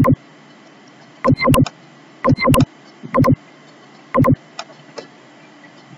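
Computer mouse clicking about eight times, sharp clicks, some in quick pairs, coming irregularly while the document is navigated, over a faint steady hiss with a thin high tone.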